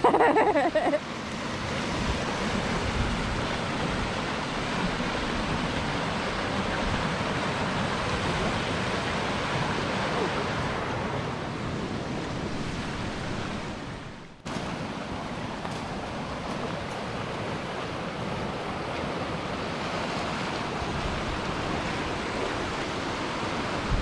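Steady rush of water from a rain-swollen creek and waterfall, breaking off briefly about fourteen seconds in.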